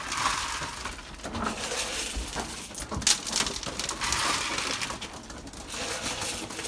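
Pigeon feed grain rattling: a gritty, crackling rattle of many small clicks coming in uneven surges, with a few sharper ticks.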